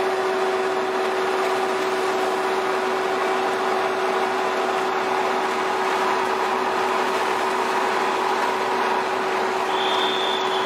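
A fishing boat's machinery running with a steady drone and a constant hum while the purse seine net is hauled aboard. A short high squeal comes in near the end.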